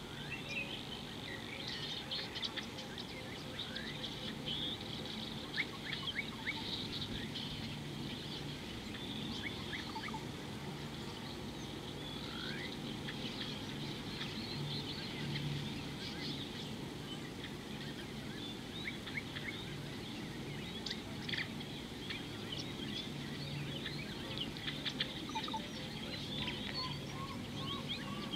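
Wild birds chirping and twittering, many short calls overlapping throughout, over a steady low hum.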